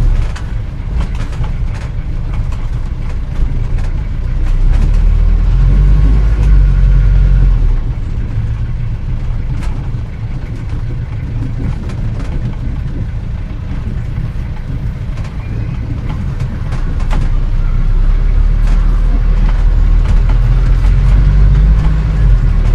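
Old car driving: a continuous low engine and road rumble with scattered small rattles and knocks, growing louder from about four seconds in until about eight seconds, and again from about seventeen seconds on.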